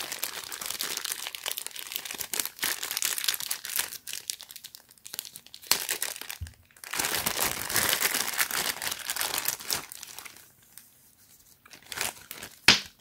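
Clear plastic wrapping crinkling and rustling in stretches as it is pulled off a small plastic blower fan by hand. A sharp knock sounds near the end.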